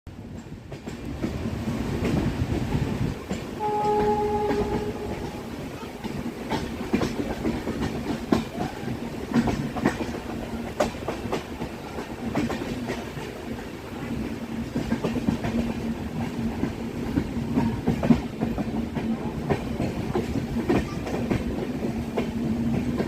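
A train running along the track: a steady rumble and hum with an irregular clickety-clack of wheels knocking over rail joints. About four seconds in, a short pitched horn tone sounds once.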